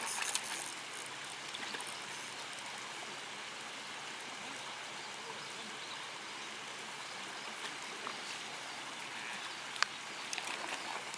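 Steady rush of running water, with a hooked fish splashing at the pond surface right at the start and a single sharp click near the end.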